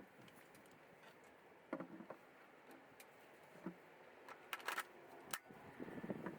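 Faint handling noises: a few light clicks and knocks, with a quick run of sharper clicks a little past halfway.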